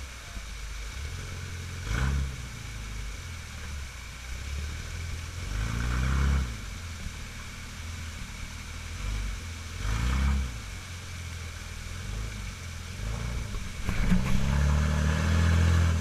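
Jeep's engine revving in repeated surges, about every four seconds, while the Jeep strains to climb a rock ledge in a creek, with a longer and louder surge near the end. A steady rush of falling water from the waterfall runs underneath.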